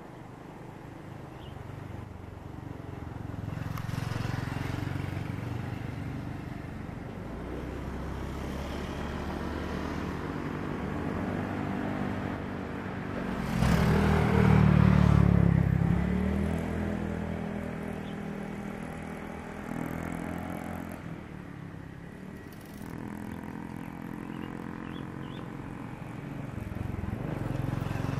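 KAI KT-1 Woongbi's single PT6A turboprop running as the trainer taxis, a steady propeller drone with a pitched hum. About halfway through a louder engine sound swells up and fades over a couple of seconds.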